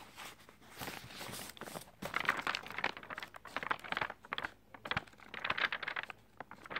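Paper pages of an old Chilton's repair manual being flipped through, rustling in quick flicks, loudest in two stretches about two seconds in and near the end.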